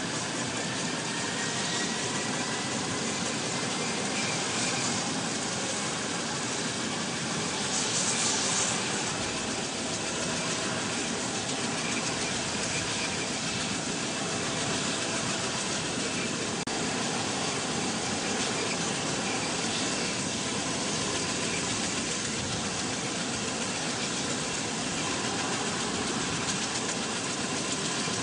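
Tiltrotor aircraft engines running with a steady roar, a faint whine rising in pitch at the start.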